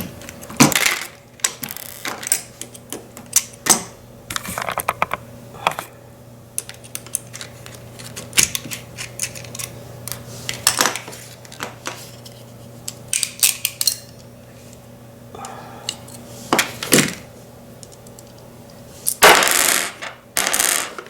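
Hand crimping tool and its metal parts clicking and clattering as it is worked and handled: many sharp separate clicks, some in quick runs, with a longer rasping rustle near the end. A faint steady hum runs underneath.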